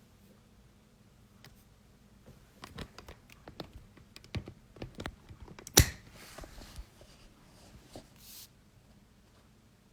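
A series of light clicks and taps, with one sharp knock a little past the middle and a short hiss near the end.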